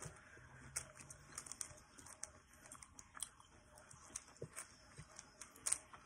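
Plastic 3x3 speed cube being turned by hand, its layers clicking as they snap round. The clicks come quickly and irregularly, several a second, with the loudest a little before the end.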